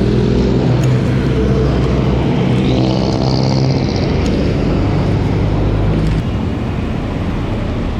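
A motor vehicle engine running steadily while moving along a road, with road and traffic noise around it. The engine note shifts about two and a half seconds in, and the sound eases slightly about six seconds in.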